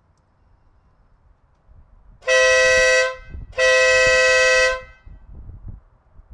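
Denali SoundBomb Split dual-tone electric air horn giving two loud steady blasts, a short one about two seconds in and a longer one about a second later, its two tones sounding together.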